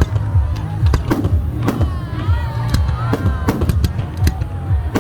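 Fireworks display going off: a quick, irregular run of sharp bangs and crackles, about a dozen or more in a few seconds, over music with a steady low bass.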